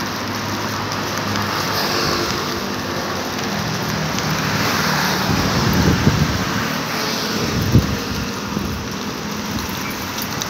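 Steady city street noise of light road traffic, with a low rumble swelling about six seconds in and a short knock near eight seconds.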